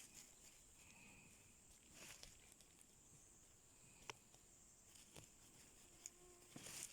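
Near silence: faint rustling of grass and undergrowth with a few soft clicks over a steady high hiss.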